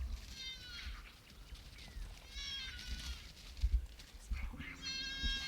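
Electronic predator caller playing a fawn distress recording: three high, drawn-out bleats about two seconds apart, each falling in pitch at its end.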